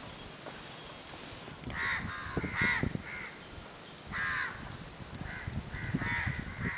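A series of short bird calls, several in a row, the loudest about four seconds in.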